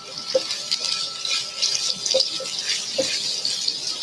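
Chopped garlic sizzling steadily in hot oil in a frying pan, with a few light knocks against the pan as it is stirred.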